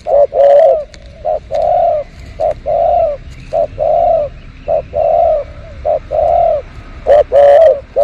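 Spotted dove cooing: a repeated phrase of a short note followed by a longer rolling coo, about once a second. The coos are louder at the start and again near the end. Small birds chirp faintly in the background.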